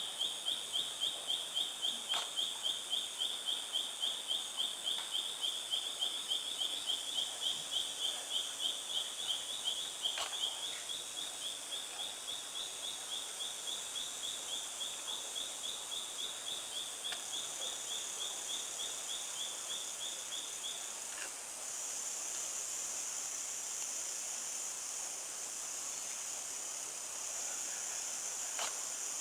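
Tropical rainforest ambience: a high chirping call repeated rapidly, about three times a second, which stops about two-thirds of the way through, over a steady high-pitched hiss that grows louder later on.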